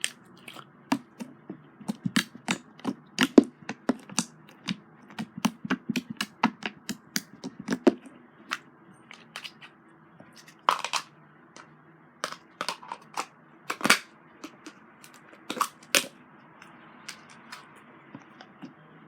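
Slime being squished and stretched by hand, giving irregular sharp clicks and pops, several a second at times, thinning out after the first half.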